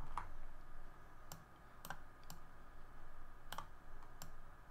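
Scattered clicks of a computer mouse and keyboard, about six spread over a few seconds, sharp and faint.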